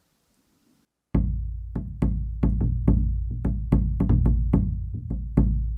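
Congado Moçambique drum rhythm starting about a second in: a deep-toned drum beaten in a steady, fast pattern of about four strokes a second, each stroke with a sharp attack and a low ring.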